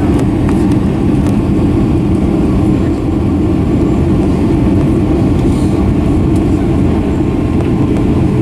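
Cabin noise inside a Boeing 757-200 as it taxis: a steady, loud, low rumble from the engines and the rolling airframe, with no change in pitch.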